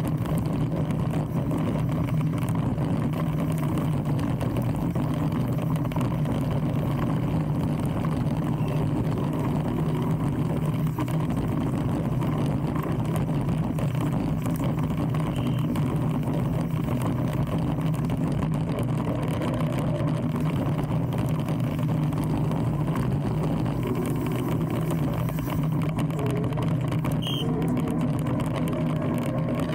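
Steady low rumble of wind and tyre noise picked up by a bike-mounted camera as a mountain bike rides down a grass and dirt track.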